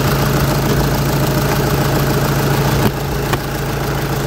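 Volkswagen 2.0 TDI four-cylinder turbodiesel idling steadily with its engine cover off, running on fresh oil and a new fuel filter. A couple of sharp clicks come about three seconds in as the plastic engine cover is pressed into place.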